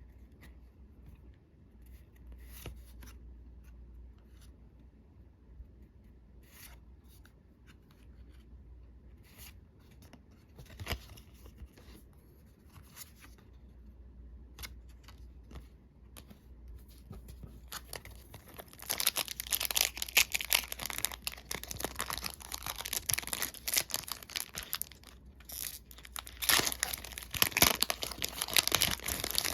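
A booster pack's plastic wrapper being handled and torn open: scattered light rustles and clicks at first, then about ten seconds of loud crinkling and tearing starting around two-thirds of the way in, with a brief pause shortly before the end.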